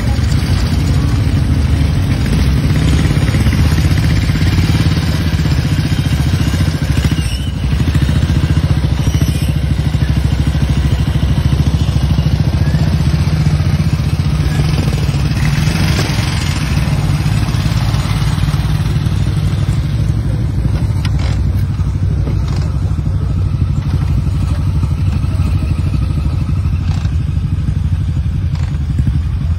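Several vintage motorcycle engines running steadily as a group of old bikes idles and rides off.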